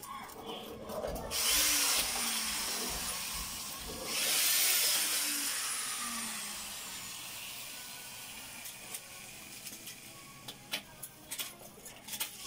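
A handheld power tool runs in two bursts, starting suddenly about a second and a half in and again about four seconds in, its high whine falling in pitch as the motor winds down over the next few seconds. Scattered light clicks follow near the end.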